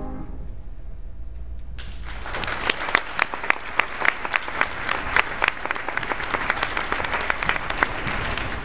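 Audience applauding after a choir's song: the last sung note cuts off, and about two seconds in a crowd breaks into dense clapping that eases off near the end.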